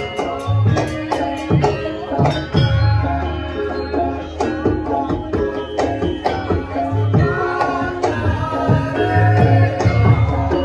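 Javanese gamelan music for a lengger dance: hand-drum (kendang) strokes over ringing bronze metallophones and gongs, with a wavering melody line above.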